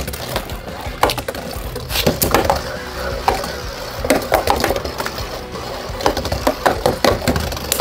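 Beyblade spinning tops, one of them 3D-printed, battling in a plastic stadium: repeated sharp clacks and rattles as they collide, over a steady spinning whir.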